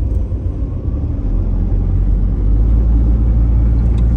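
Low, steady rumble of a car being driven along a road, getting louder a little over a second in.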